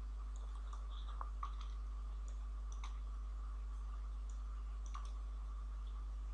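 Scattered faint clicks of a computer keyboard and mouse, about a dozen irregularly spaced, as lines of code are deleted. A steady low hum runs beneath them.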